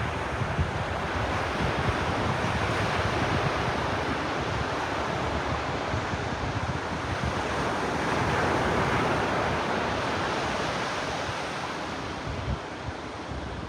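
Ocean surf washing onto a beach, building to a swell about two-thirds of the way through and easing near the end, with wind buffeting the microphone.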